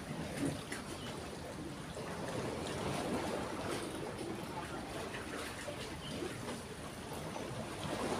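Steady flow of river water trickling, with a few faint ticks.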